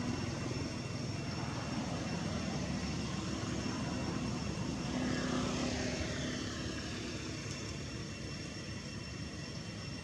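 An engine droning steadily, swelling and passing about halfway through with a brief sweep in pitch.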